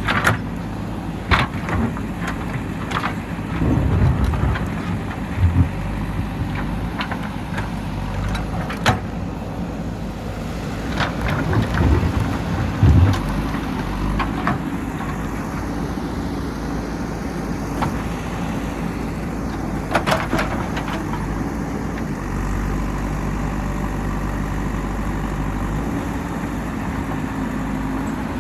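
JCB 3DX backhoe loader's diesel engine running steadily while digging, rising briefly a few times, with several sharp knocks from the working arm and bucket.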